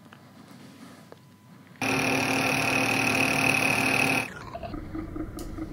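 Colchester metal lathe cutting a riser block. It starts abruptly about two seconds in, loud and steady with a high whine over noise. A little after four seconds it drops to a quieter, lower running sound with a faint regular pulse.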